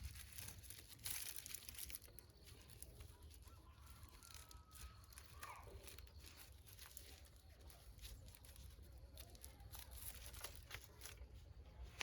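Faint chicken calls amid light rustling and small clicks, with a couple of short pitched calls near the middle.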